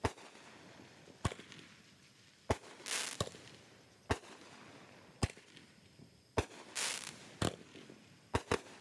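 Fireworks going off: about ten sharp bangs, roughly one a second, a few of them followed by a crackling hiss.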